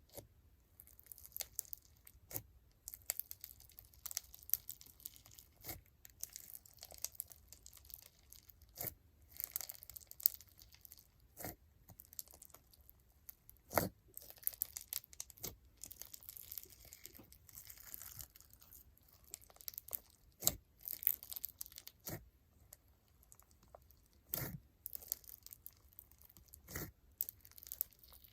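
Icee-jelly crunch slime packed with foam beads and bingsu beads, worked by hand: irregular crackling and popping, with sharp snaps scattered throughout.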